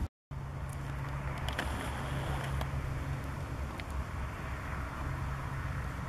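John Deere farm tractor's diesel engine running steadily while pulling a plough, a low even drone. The sound drops out for a moment at the very start, and a few faint clicks come through about two seconds in.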